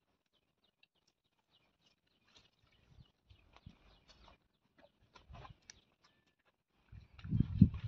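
Nylon tent fabric being handled and pegged out: scattered short rustles and clicks, then a louder burst of rustling and bumping near the end.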